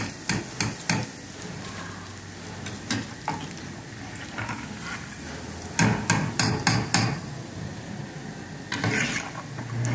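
Oil sizzling steadily as small dough fritters deep-fry in a pot, with sharp metallic taps from a metal skimmer: a few quick taps at the start, a run of about six around the middle, and a couple more near the end.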